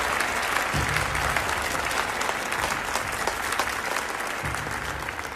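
Audience applauding: a dense patter of many hands clapping, easing off slightly near the end.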